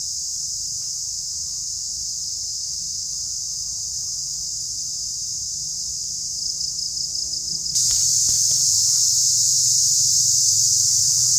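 Steady, high-pitched insect chorus that becomes suddenly louder about eight seconds in.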